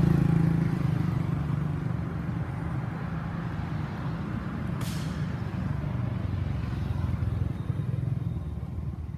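A motor vehicle's engine running steadily nearby, loudest at the start and slowly fading. There is one short sharp click about five seconds in.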